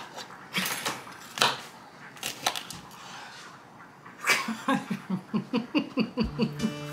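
Kitchen knife slicing a yellow bell pepper on a plastic cutting board: several sharp taps of the blade striking the board. In the second half comes a quick run of short pitched sounds, about four a second, and music starts near the end.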